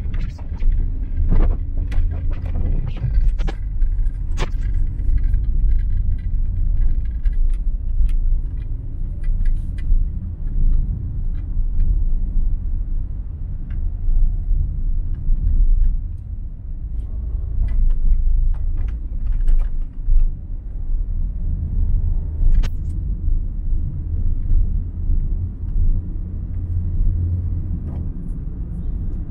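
A car driving in the rain, a steady low rumble throughout. Scattered sharp clicks and taps come over it, thickest in the first several seconds.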